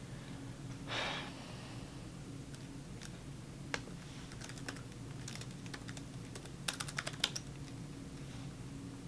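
Typing on a computer keyboard: scattered single keystrokes, then a quick run of them about three-quarters of the way through.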